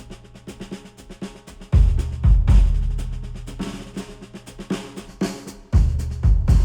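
Instrumental music with a drum kit and heavy bass hits that slowly fade, over a rhythm of repeated notes. It is played through headphones and picked up by measurement microphones.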